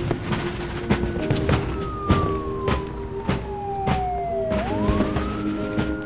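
A siren wailing: it holds high, slides slowly down in pitch over about three seconds, then swings back up near the end. Under it runs background music with held low notes and a steady beat a little under twice a second.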